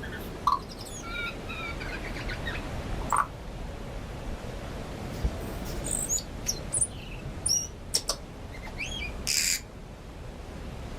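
Tui singing: a varied string of short whistled notes and sharp clicks, with a harsh wheeze near the end, over a steady background hiss.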